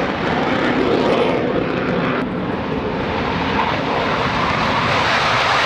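Panavia Tornado's twin RB199 turbofans roaring at takeoff power with afterburner. About two seconds in, the roar abruptly turns duller.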